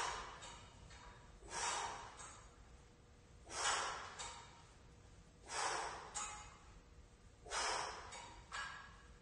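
A man breathing hard while exercising through dumbbell renegade rows: a sharp, noisy breath about every two seconds, each followed by a shorter one.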